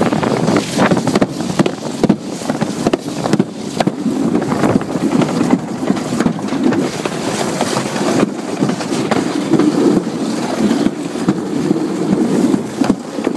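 Alpine slide sled running down the track: a continuous rattling rumble dotted with clicks and knocks, with wind buffeting the microphone.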